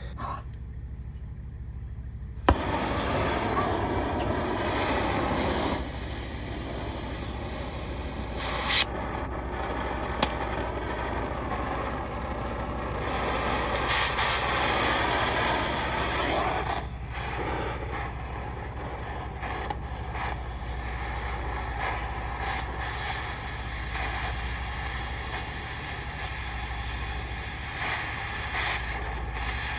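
Miller Big Blue 500 engine-driven welder's diesel engine running steadily, with loud crackling and hissing of arc work on the wagon steel starting about two and a half seconds in and continuing at an uneven level, with a few sharp clicks.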